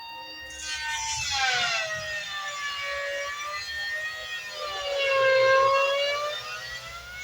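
Handheld electric planer running, its motor whine sagging in pitch as it bites into the timber and rising again as it frees up, twice, with a hiss of shaving wood as the first cut starts.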